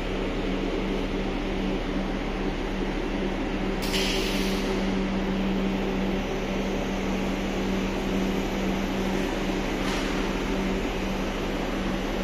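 Copper wire granulator running: a steady machine hum with a constant low tone, and a brief hiss about four seconds in.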